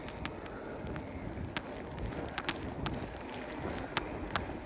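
Steady low wind rumble on the microphone while riding a bike on a wet road, with scattered sharp ticks at irregular intervals.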